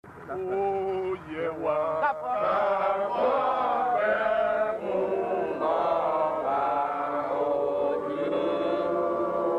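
Voices chanting in long, held melodic phrases that glide up and down between notes, starting about half a second in.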